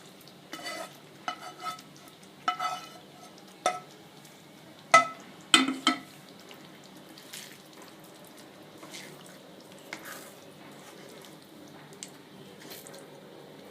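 A spoon stirring vegetables into a thick gravy in a pan, knocking and clinking against the pan several times in the first half, over a soft frying sizzle. The loudest knocks come about five to six seconds in, then the stirring goes on more quietly.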